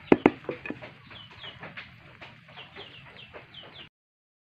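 Chickens clucking and calling, a run of short high calls, with two sharp knocks just after the start; the sound cuts off abruptly near the end.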